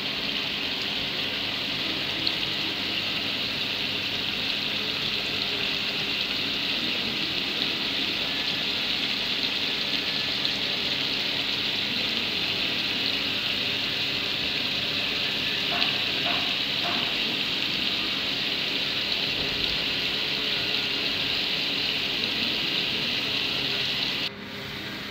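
Chicken and potato curry simmering in a karahi after hot water is added, with a steady bubbling sizzle. The sound drops suddenly to a quieter level near the end.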